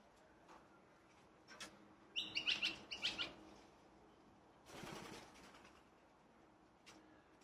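Birds chirping in a quick cluster of sharp, high notes about two seconds in, then a brief flutter of wings a couple of seconds later.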